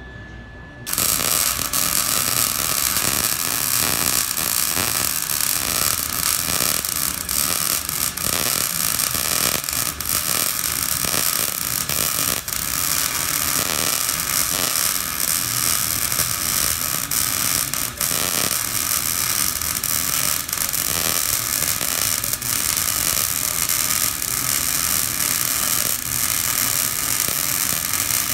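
Electric welding arc striking about a second in and then burning steadily: a loud, continuous crackling hiss.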